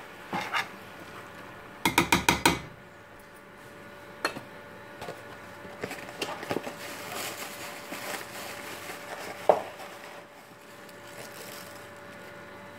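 Metal spoon knocking against a stainless steel cooking pot: a quick run of about five sharp knocks about two seconds in, then faint scattered clicks and ticks.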